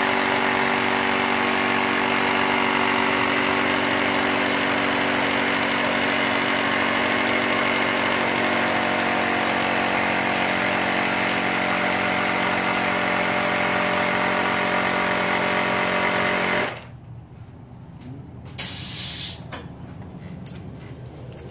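Portable electric tire inflator's pump motor running steadily with an even buzz, then shutting off abruptly about 17 seconds in. A short hiss of air follows about two seconds later, and a few small clicks come near the end.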